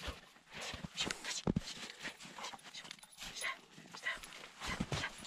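A Labrador retriever playing in deep snow: irregular soft scuffs and crunches of its paws in the snow, mixed with the dog's own breathing and snuffling.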